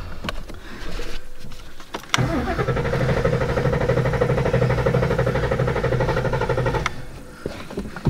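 Starter cranking the Whipple-supercharged 5.0 L V8 of a 2016 Ford Mustang GT for about five seconds, after a couple of clicks, without the engine catching. The fuel pump is not priming, which the owner takes for a bad fuel pump.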